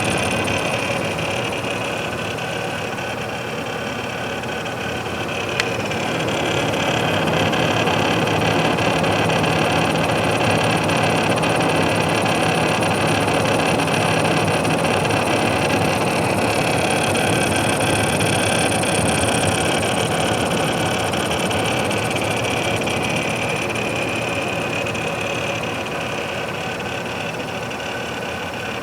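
Defective Corsair H100 liquid CPU cooler running with a steady mechanical rattling and grinding noise from its faulty pump and a failing fan. A single sharp click about six seconds in.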